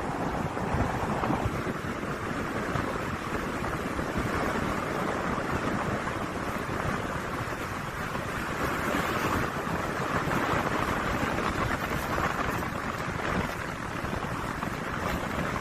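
Steady rushing wind, swelling a little around the middle, with wind buffeting the microphone.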